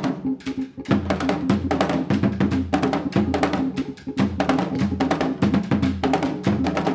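A live band playing a drum-led groove: a drum kit's quick, busy strikes over a repeating line of low bass notes.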